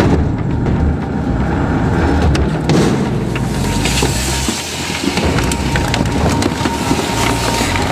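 A heavy crushing machine running and breaking up material: a continuous low rumble with many sharp cracks and splintering snaps, and a thin steady tone above it.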